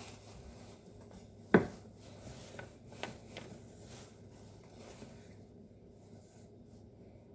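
A kitchen knife cutting carrot on a cutting board: one sharp, loud knock about a second and a half in, then a few lighter taps and quiet rubbing.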